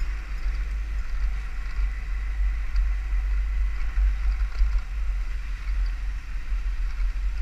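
Steady wind rumble on the microphone of a camera on a moving dirt bike, with the motorcycle's road and running noise faintly under it.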